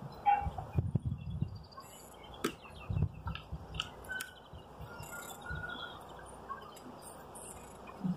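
A metal hive tool knocking and scraping against wooden beehive frames as a frame is pried loose and lifted out, with a sharp click about two and a half seconds in. Small birds chirp in the background.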